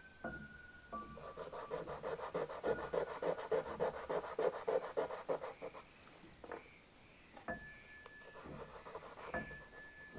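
Pastel stick rubbed across paper in fast back-and-forth strokes, a quick scratchy rubbing of several strokes a second from about a second and a half in until about five and a half seconds, with soft piano notes underneath.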